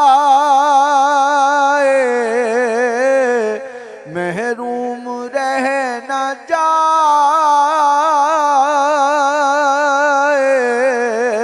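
A man singing a devotional Urdu naat, drawing out long notes with wavering, ornamented turns of pitch. Only the one voice is heard, and it breaks off briefly between phrases about four seconds in.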